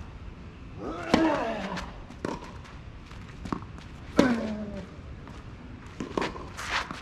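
Tennis rally: sharp racket-on-ball strikes and ball bounces, the two loudest strokes about a second in and just after four seconds, each followed by a player's short grunt that falls in pitch.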